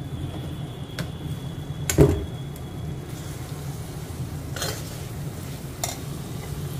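A perforated steel skimmer stirring and scraping a mawa and dry-fruit mixture in an aluminium kadhai, with a few sharp knocks of the spoon against the pan, the loudest about two seconds in. A steady low hum runs underneath.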